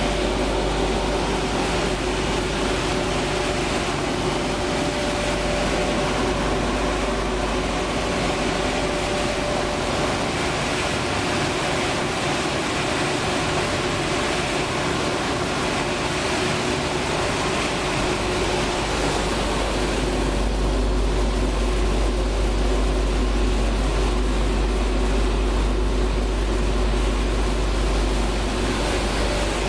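Dog food production line machinery running: a loud, steady industrial drone of motors and drives with a constant hum. A deep low rumble swells in the last third.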